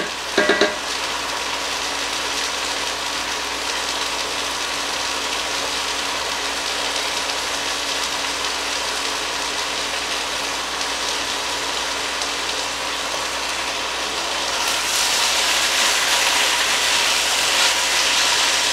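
Thin-sliced beef searing in hot oil in a pot, a steady sizzle with a spatula stirring through it; the sizzle grows louder and brighter about fifteen seconds in.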